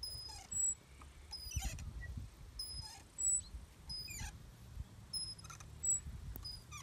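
Squeaking of swings' chains and hangers as two people swing, short high squeaks and falling squeals coming again and again with each swing.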